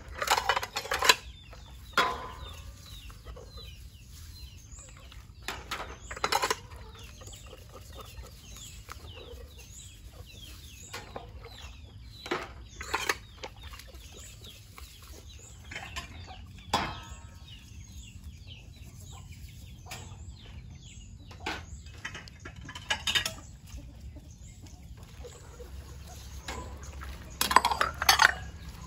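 Chickens clucking at irregular intervals, short calls every few seconds, loudest at the start and near the end.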